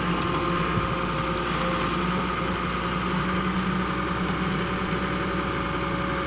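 Diesel engines of a Volvo EW130 wheeled excavator and a farm tractor running steadily at a constant speed while the excavator loads the tractor's trolley with soil.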